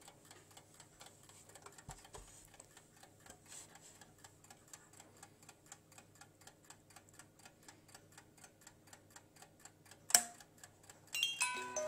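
Antique Junghans musical alarm clock ticking with a fast, even beat. About ten seconds in comes a sharp click, and near the end its musical alarm starts playing a melody of short, high notes.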